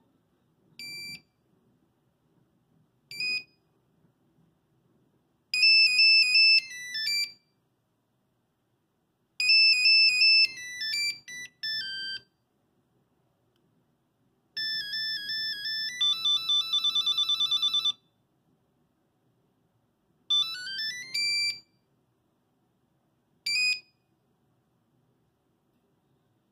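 Nokia 5110 monophonic ringtones played in short snatches, one after another with pauses between: single beeps and quick runs of electronic notes, several falling in pitch, one ending in a fast trill.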